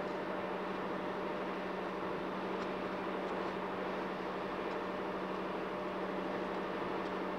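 Steady mechanical noise with a constant low hum, like an engine running, unchanging throughout.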